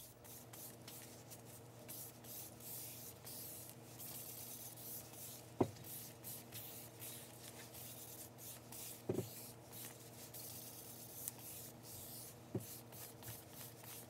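Gloved fingers rubbing over a glazed stoneware plate, smoothing a waterslide decal flat to push out water and air bubbles: a run of soft strokes over a steady low hum. Three sharp clicks, about three and a half seconds apart, break in, the first the loudest.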